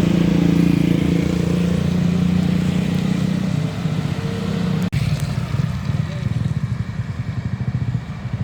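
Motor vehicle engines running close by. After a brief dropout about five seconds in, an idling engine throbs steadily.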